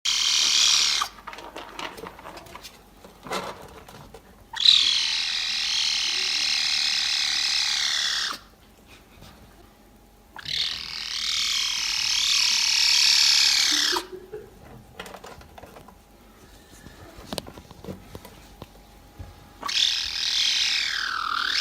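A cat giving long, high-pitched yowls that sound like a laser beam: four drawn-out calls, their pitch sweeping and falling, with short quiet gaps between them.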